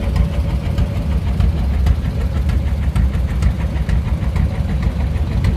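Tractor engine running steadily: a low rumble with a fast, even ticking of exhaust pulses. A faint steady whine fades out about halfway through.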